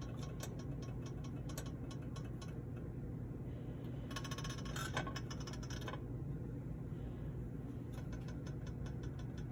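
Olive oil heating in a skillet, giving scattered light pops and crackles that thicken for a couple of seconds midway, over a steady low hum.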